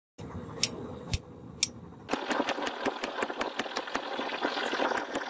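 Hammer blows on a hot iron chain link on a steel anvil: three sharp strikes about half a second apart, then from about two seconds in a fast run of lighter blows, about five a second, over a steady rushing noise.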